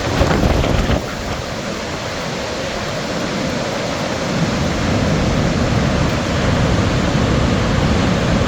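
The Orange River pouring over Augrabies Falls: a loud, steady rush of falling water with a deep rumble underneath, a little louder for the first second.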